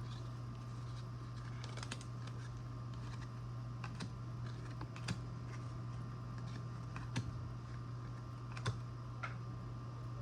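Trading cards being handled and flipped through: scattered light clicks and taps of card stock, a few sharper clicks spread through, over a steady low hum.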